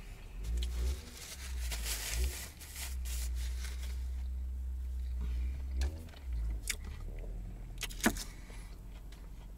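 A car engine revving nearby: a low rumble lasting several seconds, then a couple of sharp clicks near the end.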